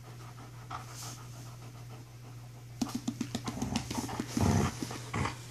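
Young wolfdog panting hard from rough play, soft at first, then rapid and louder about three seconds in.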